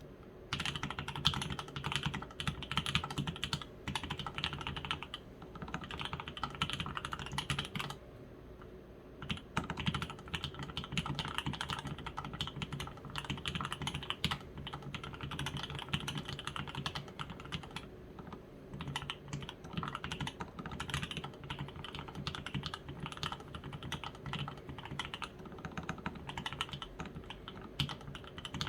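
Typing on a custom Evelyn ergonomic mechanical keyboard with lubed H1 switches, lubed stabilisers, an anodised aluminium case and plate, and Olivia Dark keycaps. A rapid, continuous run of keystrokes with a few short pauses.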